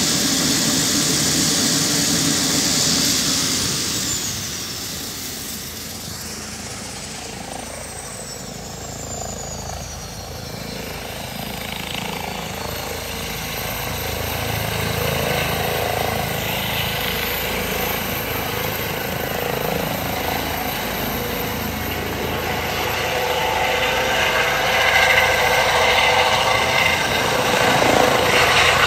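Eurocopter EC135 twin-turbine helicopter lifting off and departing: steady rotor and turbine noise that dips a few seconds in, then builds again, loudest near the end as it passes low.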